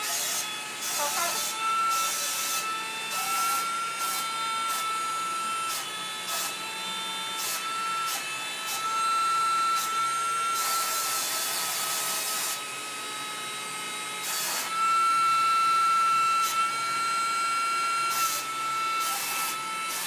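Small motor of a wall-climbing Spider-Man toy running as it clings to and crawls over a wall, a steady high whine. It is broken by repeated short bursts of hiss, the longest about two seconds, around the middle.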